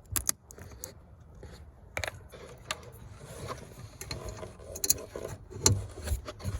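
Irregular small plastic clicks and rattles as the new parking-light bulb and its holder are handled and pushed back into a VW Touran's headlight housing.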